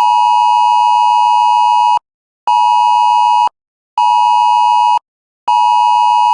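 Loud electronic Emergency Alert System alert tone, a steady beep sounding in pulses: one two-second tone, then two one-second tones with short gaps, then a fourth that starts about five and a half seconds in.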